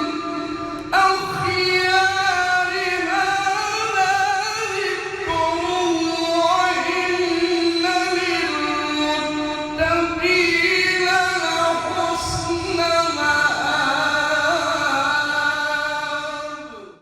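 A male reciter chanting Quranic recitation in a melodic maqam, with long held and ornamented notes. It fades out sharply near the end.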